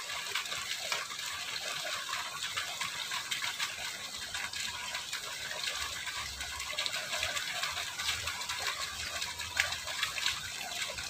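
Steady rushing of fast-flowing water in a concrete-lined irrigation ditch.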